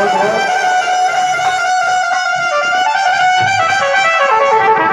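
Electronic keyboard playing a slow melody of long held notes in a brass- or string-like voice, with a slide up into the first note.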